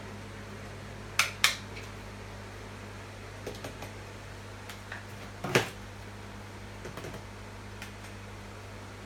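Hard plastic vacuum-cleaner parts being handled and set down: a few scattered clacks and knocks, the loudest about halfway through, over a steady low hum.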